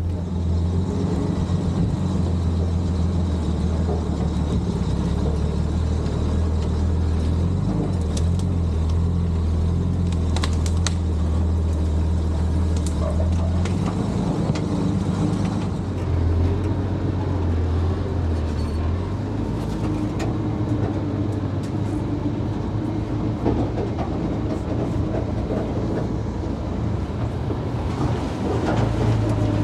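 Dodge M37 truck's flathead inline-six engine running steadily at low speed as the truck crawls along a dirt trail, with a few short clicks and rattles partway through.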